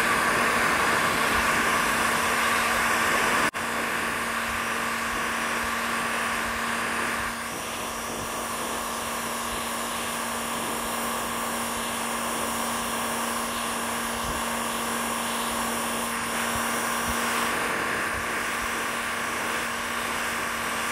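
Cordless battery heat gun running steadily, its fan blowing hot air onto a chainsaw crankcase to loosen the crank bearing. It makes an even whir with a low hum and gets a little quieter about seven seconds in.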